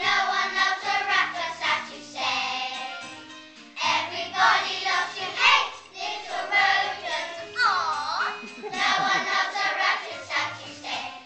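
A group of children singing a song together over a musical accompaniment, with a wavering, sliding note about two-thirds of the way through.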